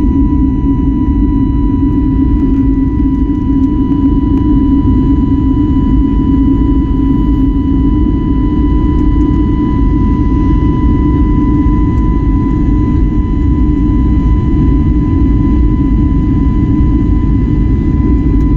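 Jet airliner engines running steadily after take-off: an even low rumble with a thin, steady high whine above it, unchanging throughout.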